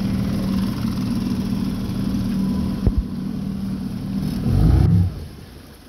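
Small outboard motor on a jon boat running steadily at cruising speed. A short, loud low rumble comes near the end, and then the sound drops off.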